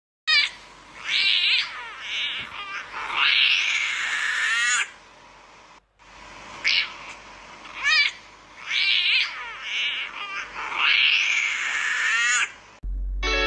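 French bulldog puppy giving a run of short high-pitched squeaks and yips, then a longer squeaky howl that rises and falls with its mouth wide open, a tiny attempt at a roar. The same run of calls is heard twice.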